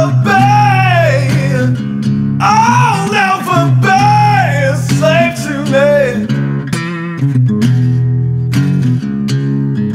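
Background song: singing over electric guitar and bass for about the first six seconds, then a short guitar passage without the voice.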